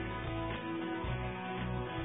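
Background music: guitar-led instrumental track with sustained notes and a steady beat.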